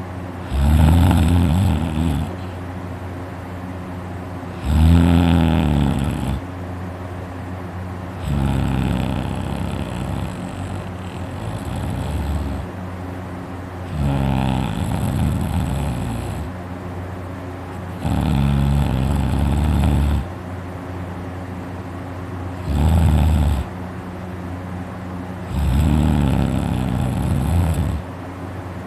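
A man snoring loudly in his sleep, seven long snores about four seconds apart, each lasting a second or two. A steady low hum runs beneath them. He puts the snoring down to his uvula vibrating.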